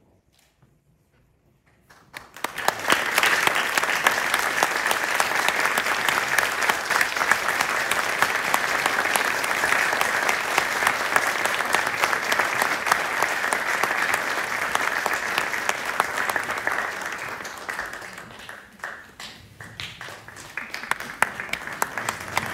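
Audience applauding: dense clapping starts about two seconds in and holds steady, thins out briefly late on, then picks up again near the end.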